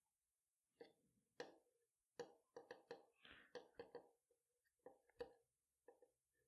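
Faint handling sounds of hand-stitching nylon webbing: a quick string of soft clicks and taps from the needle, thread and metal clip, with a brief rustle of thread being drawn through about three seconds in. The sounds start about a second in.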